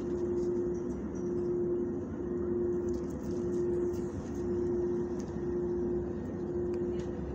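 Steady machine hum over a low rumble, one tone in it swelling and dipping about once a second, with a few faint light ticks.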